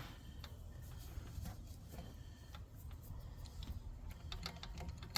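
Faint, scattered light metallic clicks and ticks of hand tools and a bolt being worked into a thermostat housing, coming quicker near the end.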